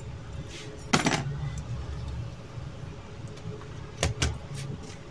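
A few sharp clicks of small laptop parts being handled: a loud one about a second in and two close together near four seconds, over a steady low background rumble.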